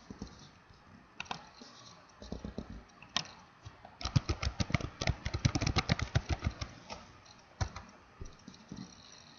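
Typing on a computer keyboard. There are a few single key clicks, then a quick run of keystrokes about four seconds in that lasts some three seconds, and one more click near the end.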